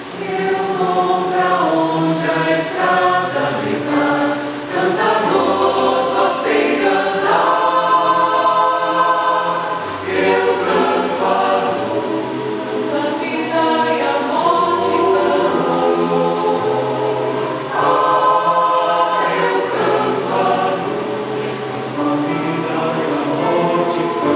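Mixed choir of men and women singing in several parts, accompanied by digital piano sustaining low notes beneath the voices.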